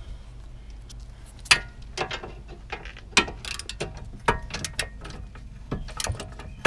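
Long hand ratchet with an extension being worked on a bolt of a car's front suspension: irregular ratchet clicks and sharper metal knocks, the loudest about one and a half seconds in.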